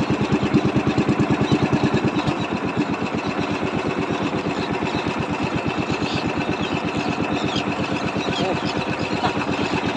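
Small fishing boat's engine running with a steady, rapid chugging beat, dropping slightly in level about two and a half seconds in.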